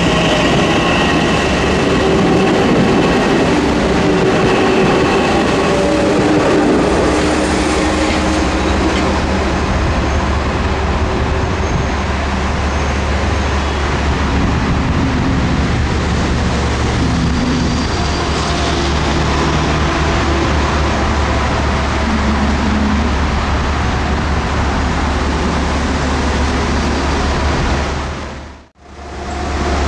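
Metro-North commuter train running through a station, a loud, steady rumble of wheels on rail with some high tones over it. Near the end the sound dips to near silence for a moment, then a different steady noise comes back.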